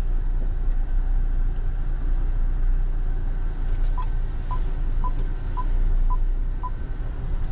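Steady low rumble of a car's engine and road noise inside the cabin as it moves slowly while parking. From about four seconds in, the parking sensor beeps about twice a second.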